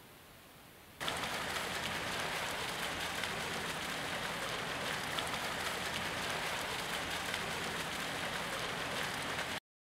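A loud, even hiss with fine crackle that starts suddenly about a second in and cuts off suddenly near the end.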